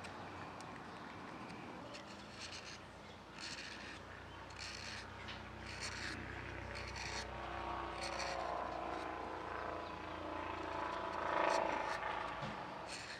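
Morakniv 106 carbon-steel sloyd knife slicing shavings from an alder spatula, short scraping cuts about once a second. A low rumble swells underneath and is loudest near the end.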